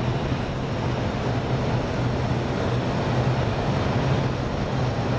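Steady flight-deck noise of an Airbus A320 on approach: an even rush of air with a low hum underneath.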